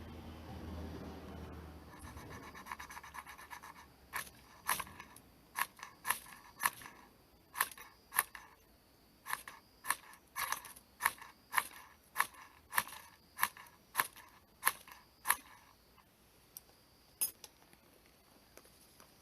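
A series of short, sharp scraping strokes, about twenty in all at roughly two a second, stopping after about fifteen seconds with one more stroke near the end.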